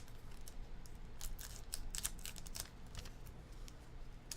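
Trading card packs being opened and cards handled: an irregular run of light clicks and crinkles from card stock and foil wrappers, over a faint low hum.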